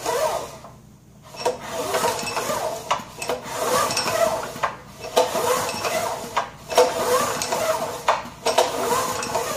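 Recoil pull-starter on a 1980s Honda 2500-watt generator being pulled repeatedly, about every one and a half seconds, each pull spinning the engine over with a rope-and-starter whir. The spark plug is out, so the engine turns freely without compression, working around oil just put in the cylinder.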